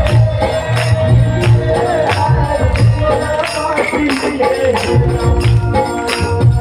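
Chhattisgarhi devotional folk music played live: a steady drum beat with percussion strokes repeating about three times a second, under sustained melodic tones.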